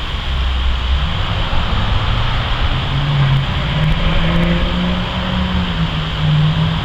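Steady low motor drone with a hum that shifts slightly in pitch, over constant background noise.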